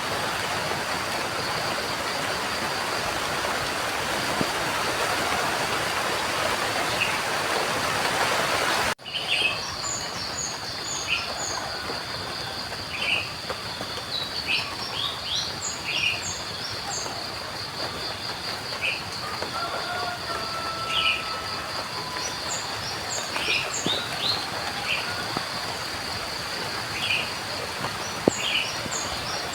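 Steady heavy rain hiss that cuts off abruptly about nine seconds in. It gives way to a quieter outdoor ambience with lighter rain noise, many birds chirping in short calls and a steady high-pitched pulsing hum.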